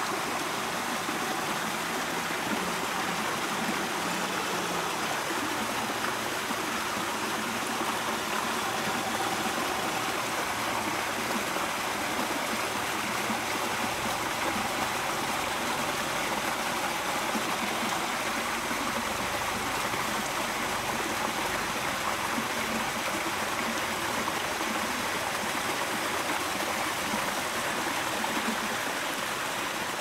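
Stream water running and splashing over rocks in a small waterfall: a steady rushing that does not change.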